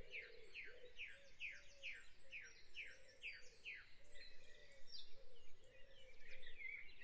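Quiet dawn chorus of wild birds. One bird repeats a short falling note about twice a second through the first few seconds, while other birds chirp and warble around it.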